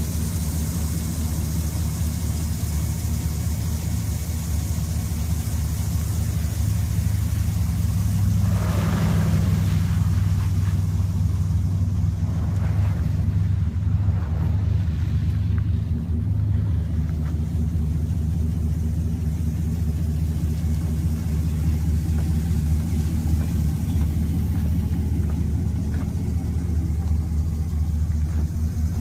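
Chevrolet Silverado pickup's engine idling steadily close by, a low even rumble. About nine seconds in, a brief swish of noise passes over it.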